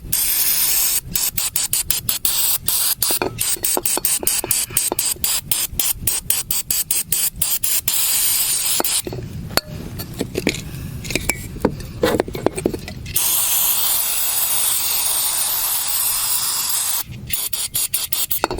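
Aerosol throttle body cleaner spraying in many quick short bursts, then a longer unbroken spray of several seconds, with a few more short bursts near the end, while cleaning carbon buildup from the throttle body. A few seconds of quieter rubbing and clatter come between the bursts and the long spray.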